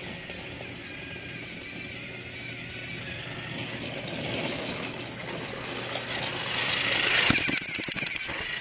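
Small electric motor of a battery-powered toy train running steadily, growing louder, with a rapid run of about ten clicks a second near the end.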